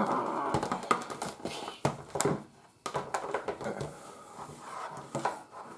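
Plastic Godzilla and Mechagodzilla action figures knocked together and tapped and scraped on a wooden tabletop in mock battle. Over the first two seconds a person makes a rough growling monster noise, and a sharp knock about two seconds in is the loudest event.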